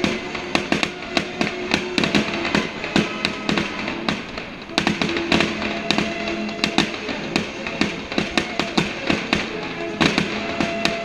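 Fireworks going off in rapid volleys, sharp bangs and crackles several times a second, over music with held notes.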